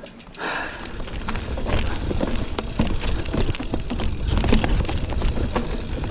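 Giant Fathom 29 mountain bike rolling over a rough dirt trail: the tyres, frame and chain rattle, with many sharp knocks over bumps. Under it is a low rumble of wind on the microphone, which builds after about half a second.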